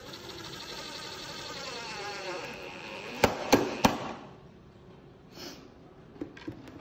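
Cordless drill/driver driving a screw into plywood to fix a caster, its motor whine dropping in pitch as the screw bites. The whine stops after three sharp clicks about three and a half seconds in, followed by a few light ticks near the end.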